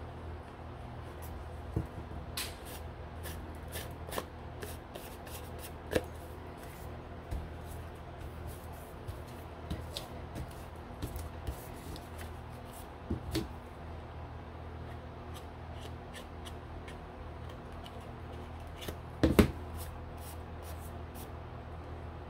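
Paper card being handled and pressed down on a tabletop: scattered small rustles, taps and clicks over a steady low hum, with one louder knock about 19 seconds in.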